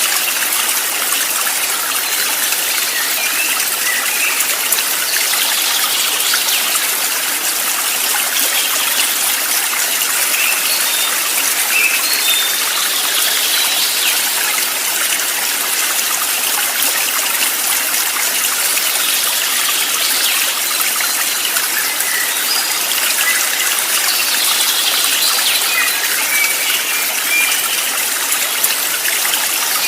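A stream flowing steadily, a constant bright rush of water, with short high bird chirps dotted through it.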